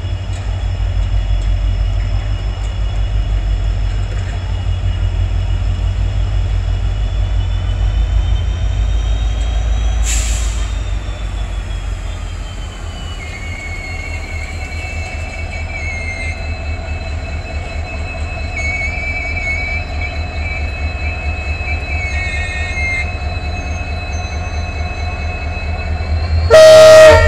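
WDP-4D diesel-electric locomotive's EMD 16-cylinder two-stroke engine running under load as it pulls a passenger train away, a steady low rumble with thin high whining tones. A faint wheel squeal comes in midway, and near the end the locomotive's horn sounds loudly for under a second.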